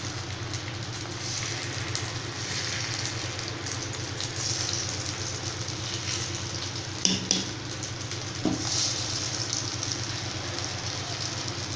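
Batter sizzling in hot oil as it is ladled into the cups of a cast-iron paniyaram pan, with a steady low hum beneath. Two brief knocks, the ladle against the pan, come in the second half.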